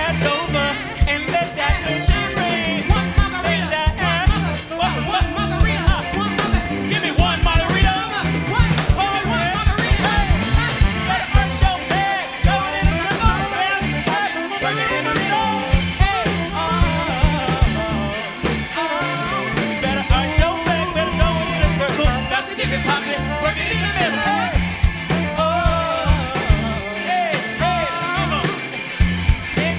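Live pop-gospel-jazz fusion band playing: drum kit keeping a steady beat, electric bass and guitar, with a wavering lead melody over the top.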